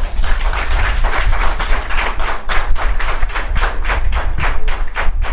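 Audience clapping in a steady rhythm, about four claps a second, in response to a speaker's line.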